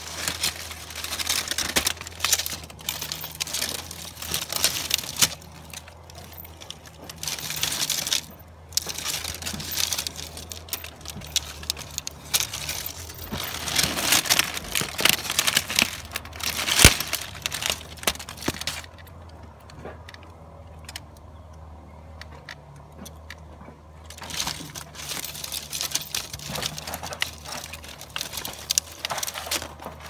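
Intermittent rustling and crackling handling noise close to the microphone, in long stretches with a quieter gap, and one sharp click partway through, over a low steady hum.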